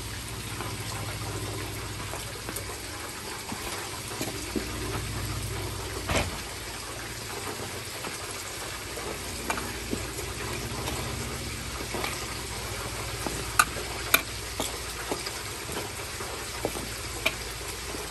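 Whole flour-dredged squid deep-frying in vegetable oil in a small deep fryer: a steady sizzle, with a few sharp clicks, the loudest a pair about two-thirds of the way through.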